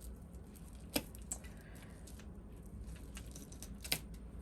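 Costume jewelry being handled: a few sharp metal clicks and light clinks as pieces knock together, the loudest about a second in and again near the end.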